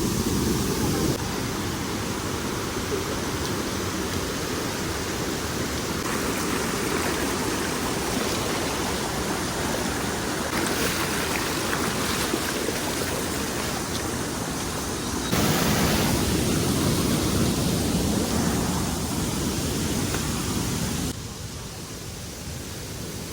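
Waterfall, a steady rush of falling water that shifts abruptly in level and tone several times.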